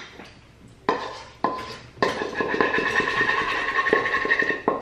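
A utensil knocking and scraping against a stainless steel saucepan as cheese sauce is scraped out into a baking dish: two knocks, then about three seconds of steady scraping that sets the pan ringing.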